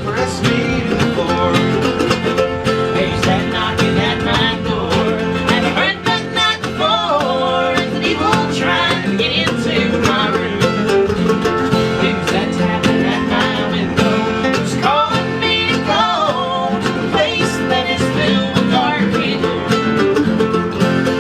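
Live acoustic bluegrass played by a small string band, with plucked strings picking a steady tune and no words.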